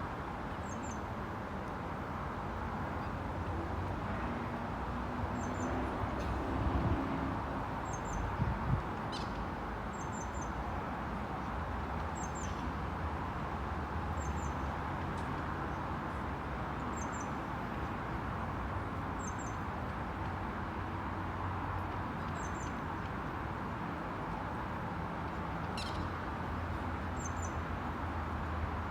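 A small songbird gives short, high two- or three-note chirps every two to three seconds over a steady low background hum of outdoor city noise.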